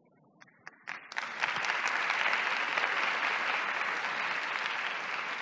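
Audience applause: a few scattered claps, then the whole audience joins in about a second in and claps steadily, easing slightly near the end.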